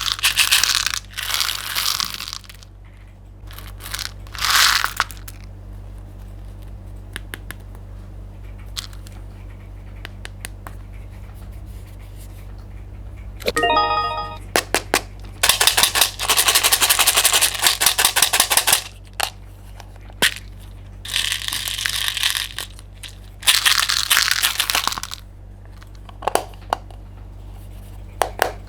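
Crunchy, crackling sounds of candy and slime being mixed and squeezed, coming in several bursts a few seconds apart over a low steady hum. About 14 seconds in, a brief run of stepped chiming tones.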